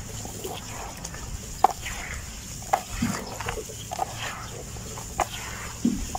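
Handfuls of soaked dirt being squeezed and dropped back into a basin of muddy water: irregular wet squelches and splats, about half a dozen, with gritty crumbling between them.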